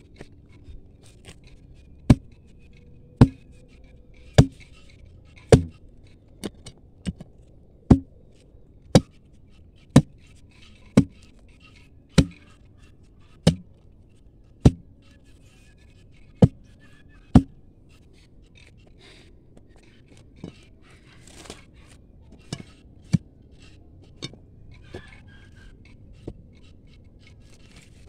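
Ribbed steel digging bar jabbed into stony soil around a tree root, about fifteen sharp strikes roughly once a second. In the last ten seconds, softer scraping and a few lighter knocks follow.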